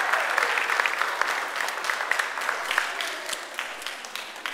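Audience applauding, the clapping getting quieter and thinner as it dies away toward the end.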